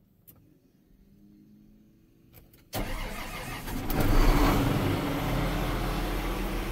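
Case IH Steiger 580 tractor's diesel engine starting, heard from inside the cab: a few faint clicks, then a little under three seconds in the engine fires, flares up briefly and settles into a steady idle.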